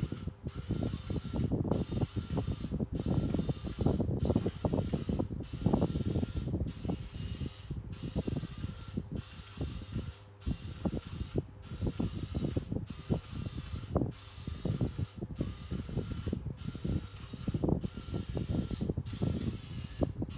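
Small geared motor of a goggle-mounted antenna tracker's turntable, whirring and clicking in quick, irregular bursts as it swings the antennas to follow the drone. A steady hiss underneath breaks off briefly about once every second.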